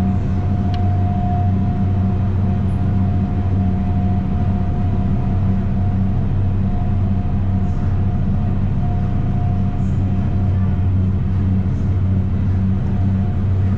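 Electric go-kart running steadily on the track: a constant loud low hum with a faint higher whine above it.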